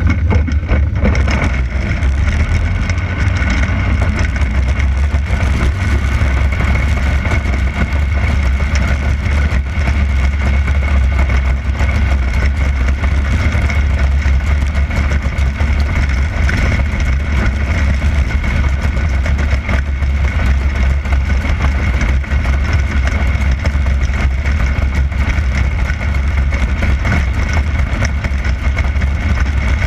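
360 sprint car's V8 engine running steadily, heard from a camera mounted on the car, a loud, even low rumble with no sharp changes in pitch.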